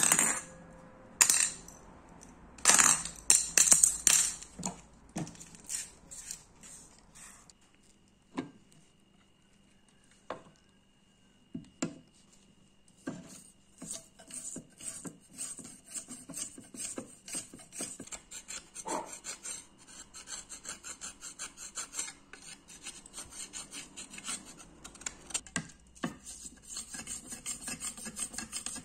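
Metal parts clanking and rattling against a stainless steel bowl several times in the first few seconds. Later a toothbrush scrubs a rusted metal pistol frame under liquid in quick, repeated back-and-forth strokes.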